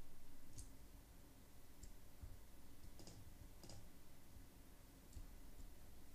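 Faint computer keyboard keystrokes: a handful of separate key clicks at irregular intervals, a second or so apart.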